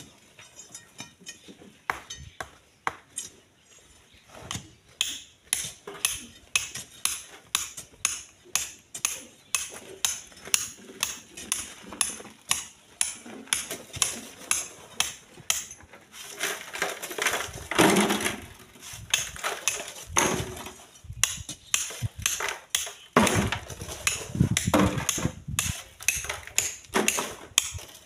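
Iron bar and shovels working sand and gravel: repeated sharp metallic clinks and scrapes, about two or three a second, with two louder stretches of gritty scraping in the second half.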